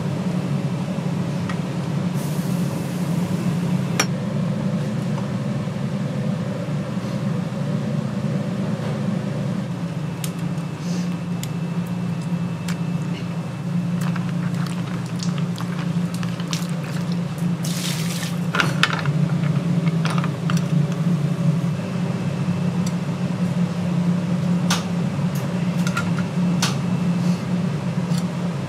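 Kitchen cooking sounds: liquid being poured or sloshing over a steady low hum, with scattered clinks of utensils and two short hissing bursts, one near the start and one about two-thirds through.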